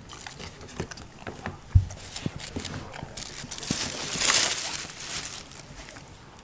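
Close handling noise: scattered soft taps, a sharp thump about two seconds in, then a louder rustle of fabric and fur brushing together around four seconds in.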